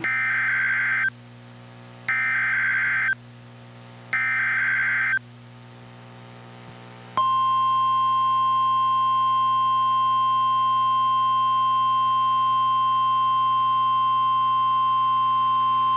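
NOAA Weather Radio emergency alert through a weather radio's speaker: three one-second bursts of buzzy SAME digital header data, a second apart, then the steady 1050 Hz warning alarm tone, held for about nine seconds over a low hum. The sequence signals the start of a new special marine warning.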